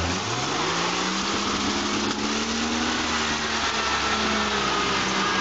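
ZIL-157 six-wheel-drive army truck's straight-six petrol engine pulling through deep mud under load: it revs up over the first two seconds, then runs steadily.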